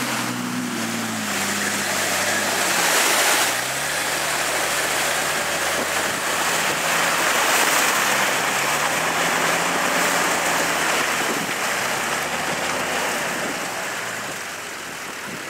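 Nissan Patrol GR 4x4's engine working under load off-road. Its pitch drops over the first few seconds while wading through deep water, then about three and a half seconds in the sound jumps and the engine rises and falls in pitch as it crawls over a rutted dirt slope. A dense, steady rushing noise runs under it.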